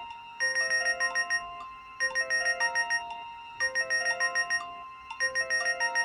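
A Nokia 6131 mobile phone ringtone playing: a short electronic phrase that loops about every second and a half, each pass a quick run of about eight bright staccato notes over a few held tones.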